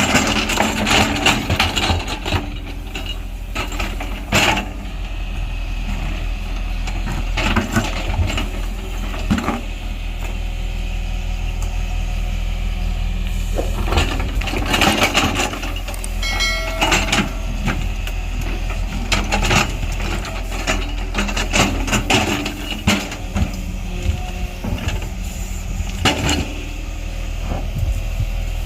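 Diesel engine of heavy earth-moving machinery running steadily, with repeated irregular metallic clanks and knocks. A brief high squeal comes about sixteen seconds in.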